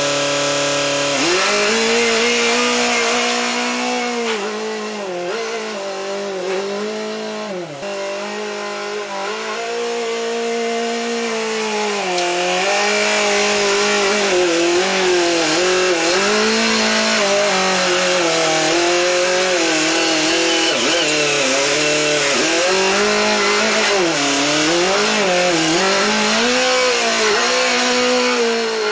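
Telehandler engine running hard under load, its pitch rising and dipping over and over as the throttle and hydraulics are worked to move the hay grapple.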